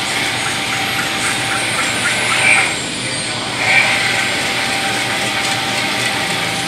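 JHFVista T90 large-format inkjet printer running, its print-head carriage shuttling back and forth across the media with a steady mechanical whirr. Two brief louder swells come in the middle as the carriage passes close by.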